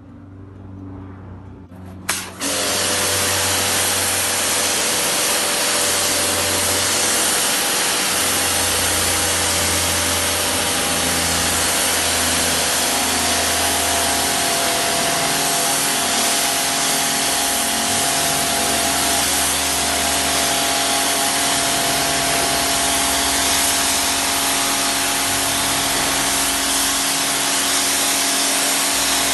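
A Kärcher home pressure washer starts with a click about two seconds in, then runs steadily. Its motor and pump give a steady hum under the loud hiss of the water jet hitting the stone paving as it blasts the dirt off.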